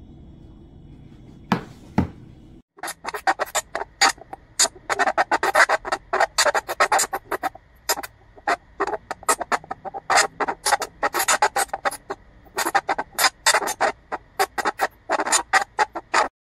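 Two sharp handling clicks as the pico projector is turned over in the hands. Then a film soundtrack playing back from the projector, a dense run of sharp sounds several a second, with short breaks and a faint steady tone under it.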